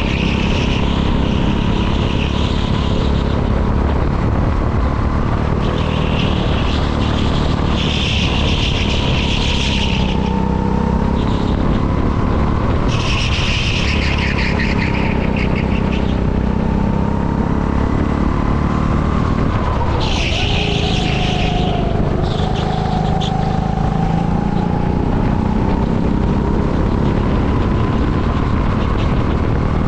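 Go-kart engine running hard, heard from on board. Its pitch drops sharply about two-thirds of the way through as the kart slows, then climbs again as it accelerates away. Several short bursts of high hiss come and go.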